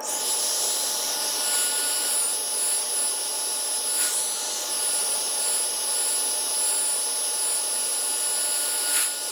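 Hot-air heat gun blowing steadily, with a high fan whine, warming a tablet's glued screen to soften the adhesive; it switches on suddenly and cuts off near the end.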